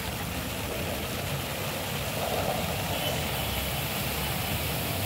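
Fountain jets splashing steadily into a pool: a constant rushing hiss of falling water with a low rumble beneath.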